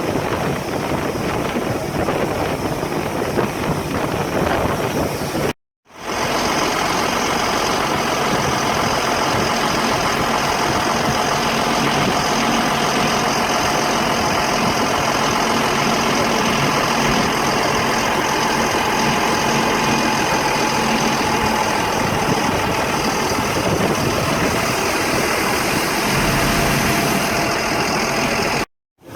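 A motor vehicle's engine running steadily under a loud rushing noise. The sound breaks off briefly about six seconds in, then resumes.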